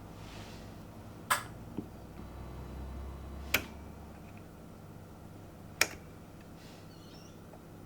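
Three sharp clicks about two seconds apart over a low, steady hum.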